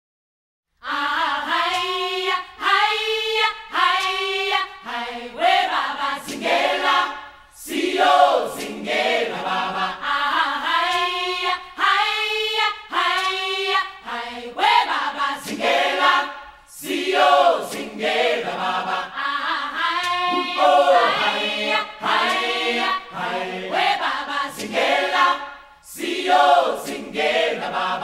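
Choir singing without instruments, coming in about a second in.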